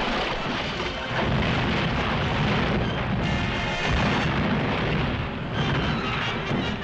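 Loud orchestral film score playing over heavy booming crashes.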